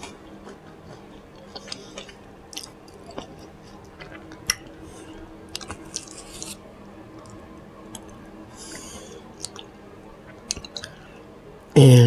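Chewing and mouth sounds: scattered wet lip smacks and tongue clicks, soft and irregular.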